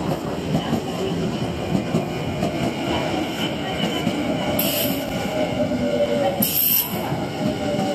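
Nankai Koya Line commuter train (formation 6507F+6505F) pulling slowly into the station: a steady rumble of wheels on rail, with two short high hisses about halfway through and a faint, slightly falling brake squeal in the second half as it slows to a stop.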